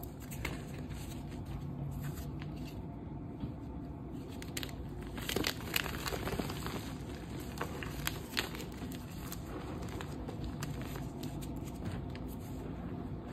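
Dyed gym chalk chunks crushed and crumbled by hand into powder: dry, irregular crunching and crackling, with the loudest crunches about halfway through and again a couple of seconds later.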